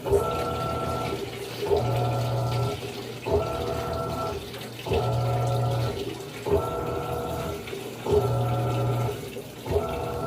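Panasonic 14 kg top-loading washing machine agitating: the motor turns the wash plate in strokes about every one and a half seconds, each starting with a click and running as a hum with a whine, with water sloshing throughout. It is filling with water for what is probably the rinse.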